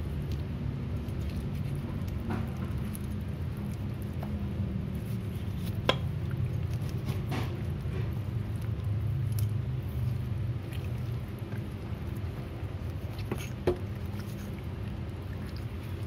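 A wide kitchen knife scraping and slicing raw chicken meat off the thigh bone on a wooden cutting board, with soft scratchy patter and a few sharp knocks of the blade. A steady low hum runs underneath.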